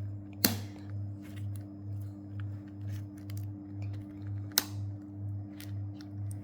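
Plastic pieces of a 4x4 Rubik's cube clicking as they are handled and fitted into the cube, with two sharp snaps, one about half a second in and one about four and a half seconds in. Background music with a steady low beat runs underneath.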